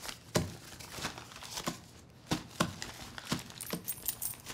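Paper shopping bag and purse being handled at a shop counter: a string of short rustles and clicks, with a faint high clink near the end.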